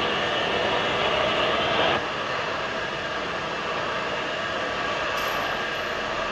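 Automatic CNC keyseating shaper running, its tool cutting internal splines into the bore of a metal part and throwing off chips, with a steady mechanical noise. About two seconds in the sound drops slightly and loses its brighter upper hiss, and a faint thin high whine comes in near the end.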